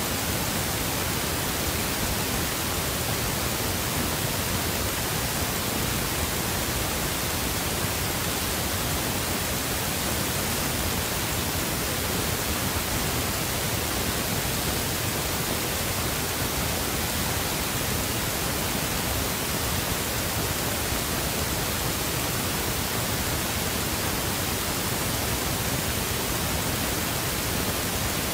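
A steady, unchanging hiss like static, spread evenly from low to high pitch, with no other sound over it.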